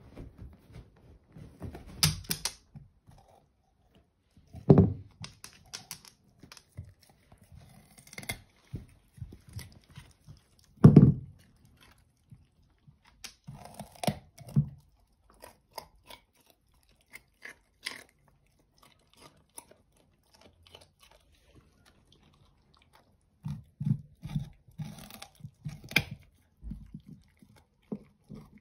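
English cocker spaniel biting and crunching a raw carrot: irregular bursts of wet, crackly chewing with pauses between. A few much louder thumps come among the crunches, and there is a quieter spell in the middle with only scattered clicks.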